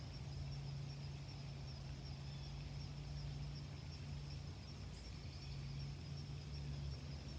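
Faint, steady outdoor ambience: an even hiss with a low hum and a thin, high, constant insect chirring.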